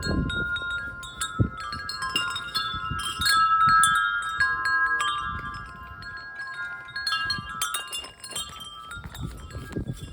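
Wind chimes ringing continuously, their tubes struck again and again in strong wind, over low gusts buffeting the microphone. There is a single knock about a second and a half in.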